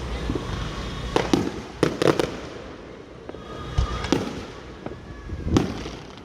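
Fireworks going off: irregular sharp bangs, several in quick succession between one and two seconds in and single louder ones later, over a steady low rumble.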